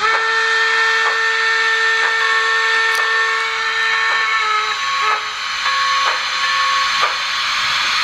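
The sound-equipped Sn3 K27 model locomotive's decoder playing a multi-chime steam whistle through its small onboard speaker: one long blast of about four and a half seconds, then shorter blasts, over a steady steam hiss.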